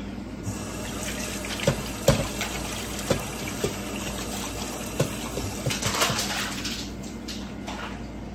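Water running, starting about half a second in and stopping near the end, with several sharp knocks and clinks over it.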